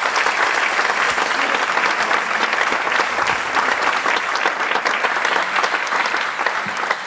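Audience applauding: dense, steady clapping that eases off right at the end.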